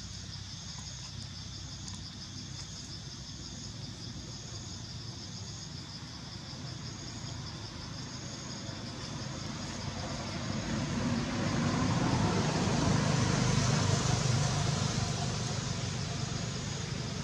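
A motor vehicle passing by, growing louder from about ten seconds in and fading again near the end, over a steady pulsing insect chorus.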